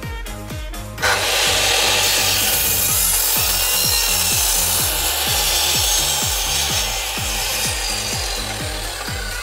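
Makita mitre saw cutting through a wooden plank: a sudden, loud start about a second in, steady cutting noise for about six seconds, then easing off as the blade comes through. Background music with a steady beat runs underneath.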